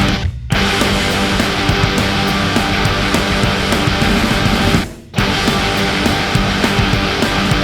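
Heavy rock background music with distorted electric guitar, breaking off for a moment about half a second in and again about five seconds in.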